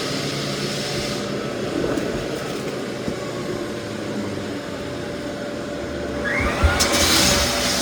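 Lagler Flip floor drum sander running steadily with a constant motor tone. Near the end it gets louder and hissier, with the rasping of sanding on the wood floor.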